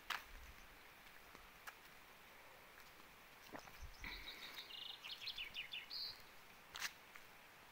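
A songbird calling a short run of high, rapid chirps for about two seconds, starting about four seconds in, over a faint steady hiss of outdoor rain ambience. A few soft knocks come at irregular moments.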